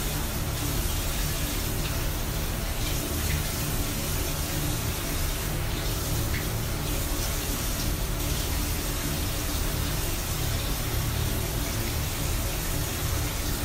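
Bathroom sink tap running steadily into the basin while hands scoop the water and splash it onto the face during a face wash.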